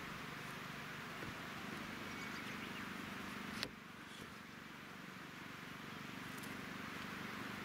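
Steady outdoor background hiss with a single sharp click a little past three and a half seconds in, after which it is somewhat quieter.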